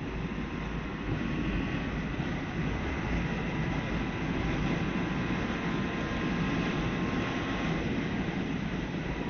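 Motorcycle running at a steady cruising speed, its engine and the rush of wind and road noise holding even throughout.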